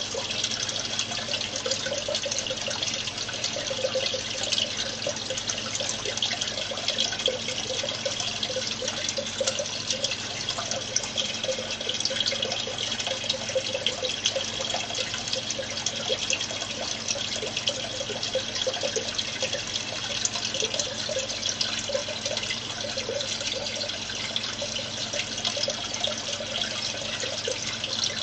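Aquarium water circulating, trickling steadily with a fine crackle, over a faint low hum.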